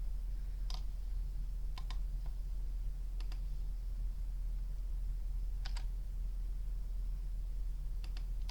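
Computer mouse and keyboard clicks, scattered and sparse, several coming in quick pairs like double-clicks, over a steady low electrical hum.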